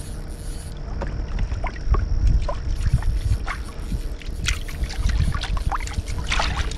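Electric trolling motor running with a steady low hum and faint whine, pushing the boat to chase a hooked fish, with water sloshing and splashing against the hull; a few louder splashes come in the second half.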